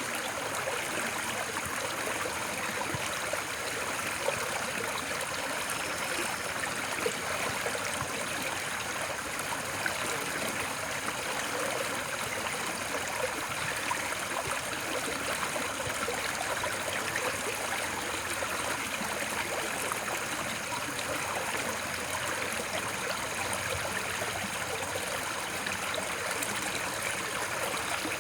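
Water of a stream flowing steadily over rocks, an even, unchanging rush with fine gurgling texture.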